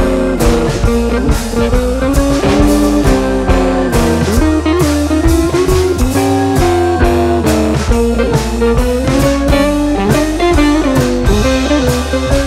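Background music: guitar-led, with a steady drum beat.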